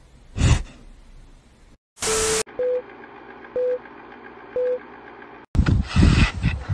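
Film-leader countdown beeps: a burst of hiss with a tone, then three short beeps of the same pitch about a second apart, over a faint hiss. A short loud burst sounds about half a second in, and near the end a loud rough rushing noise starts.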